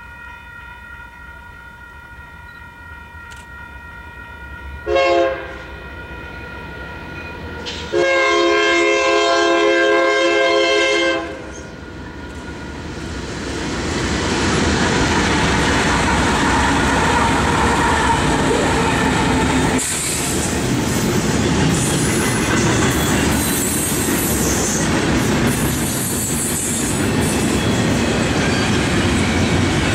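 Union Pacific SD70M diesel locomotives' air horn sounding as the train nears the crossing: faint at first, then a short blast about five seconds in and a long, loud blast from about eight to eleven seconds. Then the locomotives pass close by and the double-stack train rolls past loudly, its wheels rumbling and clattering on the rails with hissing and squealing.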